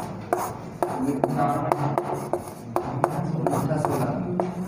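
Chalk writing on a blackboard: irregular sharp taps and short scratching strokes as words are written. A low voice murmurs or hums between the strokes.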